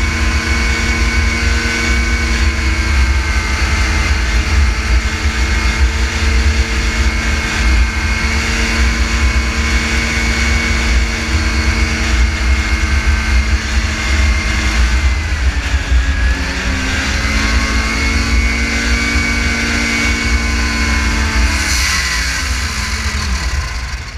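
Arctic Cat 440 snowmobile's two-stroke twin engine running at a steady cruise. About two-thirds of the way through its pitch drops and wavers, and near the end it falls away steeply as the engine winds down.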